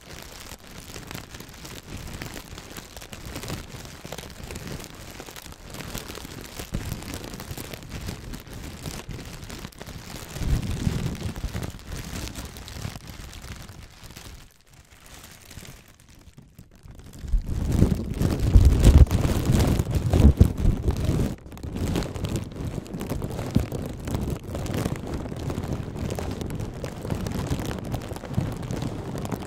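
Blue inflated plastic air-cushion packaging crinkled and squeezed against the microphone, a dense crackling. It goes quieter for a moment a little past the middle, then comes back louder with a deep rubbing rumble from the plastic on the microphone.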